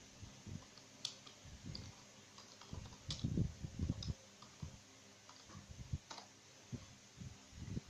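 Irregular clicks and soft taps of a computer mouse and keyboard being used, with a short cluster of duller knocks about three seconds in.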